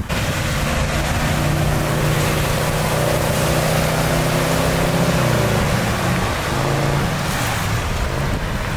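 A motorboat engine runs over a steady rush of wind and water. The engine note comes in about a second in, holds steady, then dips slightly and fades out near the end.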